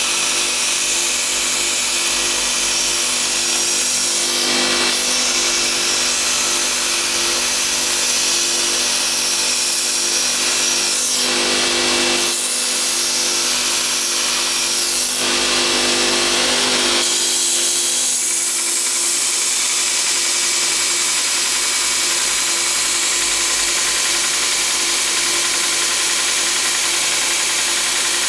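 Homemade belt grinder running steadily: a motor hum under a dense hiss from the abrasive belt, with the sound shifting briefly a few times, about 4 s, 11 s and 15 s in.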